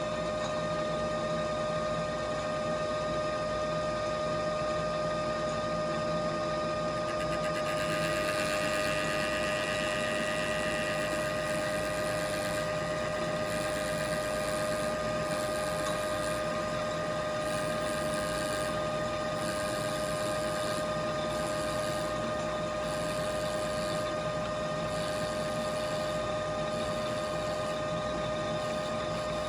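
Metal lathe running at a steady speed with a constant motor whine while light cuts are taken in a plastic gear; a brighter hiss joins from about 7 to 11 seconds in.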